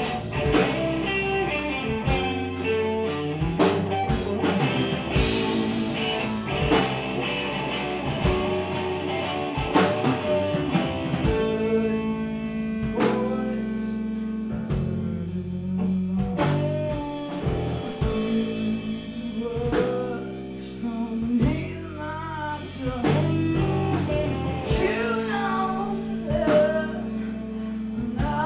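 Live punk rock band playing: electric guitar, electric bass and drum kit, with a woman singing. The drums and cymbals hit densely for the first ten seconds or so, then the band drops into a sparser, less busy part.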